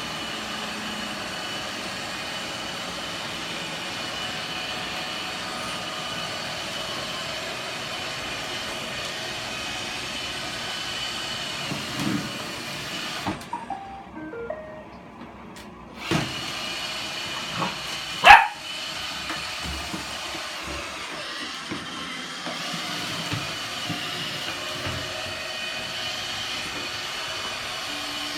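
Roomba robot vacuum running with a steady whir and whine, which drops away for a couple of seconds in the middle. A puppy gives a single short yip about two thirds of the way in, the loudest sound.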